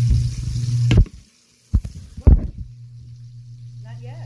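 Handling noise on the phone's microphone: rubbing and a sharp knock about a second in, a moment of dead silence, then two more knocks, after which a steady low hum is left.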